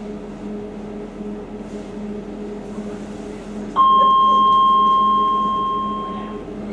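Docklands Light Railway train's door-closing warning tone: a single loud, steady high beep starting about four seconds in and held for a couple of seconds before fading, over the steady hum of the stopped train.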